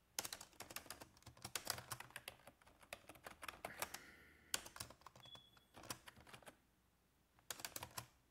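Computer keyboard typing in quick bursts of key clicks, with short pauses between the runs.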